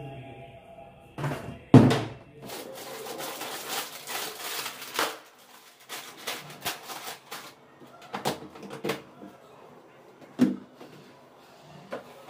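A plastic carry bag rustling as packets are handled in a kitchen, with several sharp knocks and clatters of items being set down. The loudest knock comes just under two seconds in.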